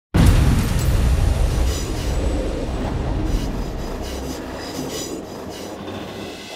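A loud, deep rumbling rush that bursts in suddenly and slowly fades, with high metallic screeching flickering in and out above it.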